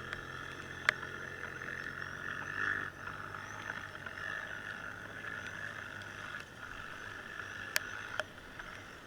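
A vehicle's motor running steadily, with a few sharp clicks: one about a second in and two near the end.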